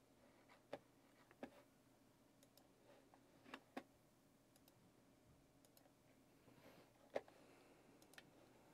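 Near silence: room tone with a handful of faint, scattered clicks and taps.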